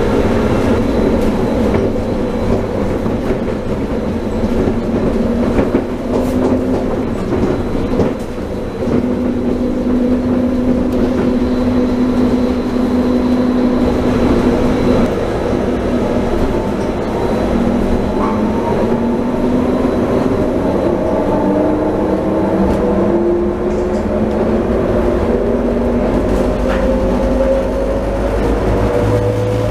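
Taipei Metro rubber-tyred train running on its concrete guideway, heard from inside the car: a steady running rumble with the electric motors' whine. The whine holds one pitch for a while, then glides upward over the second half as the train speeds up.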